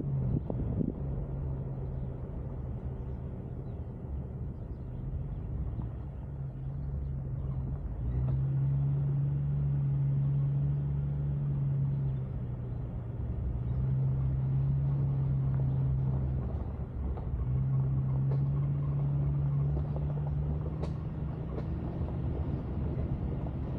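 Jeep Cherokee XJ driving: a steady low engine drone over road rumble, which swells louder three times for a few seconds each.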